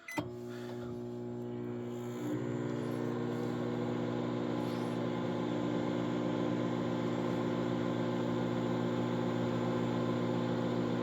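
Microwave oven running after a click as it is started: a steady hum with a faint rising whine as it comes up to speed in the first couple of seconds.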